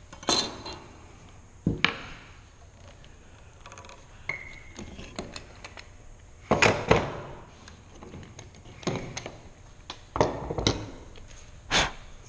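Hand tools being set down and shifted on a wooden workbench: a scattered series of knocks and clinks, the loudest about six and a half seconds in, with one brief ring of metal a few seconds in.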